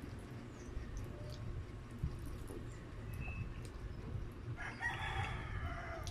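A rooster crows once near the end, a single call of about a second and a half. Before it there are soft eating sounds: a fork clicking against a glass bowl as spaghetti is twirled and eaten.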